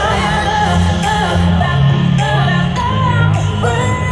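Music: a pop song with a singing voice over a steady, pulsing bass beat.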